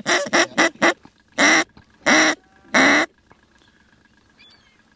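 Mallard duck call blown by a hunter to draw in circling ducks. It gives a quick run of about five short quacks, then three longer, drawn-out quacks.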